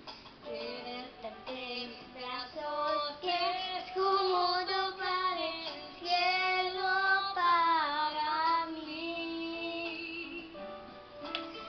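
A young girl singing a melody with long held notes, one of them sliding in pitch about eight seconds in.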